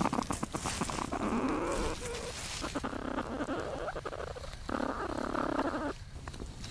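Platypus mother and young moving in their nesting chamber, heard through a microphone inside the burrow: scuffling and scratching with many sharp clicks, and two stretches of rasping noise, each about a second long.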